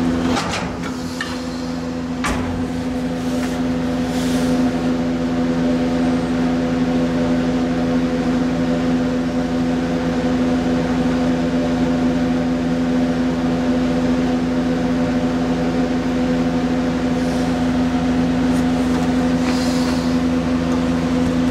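Formech vacuum-forming machine running with a steady, even machine hum, with a couple of brief knocks in the first few seconds.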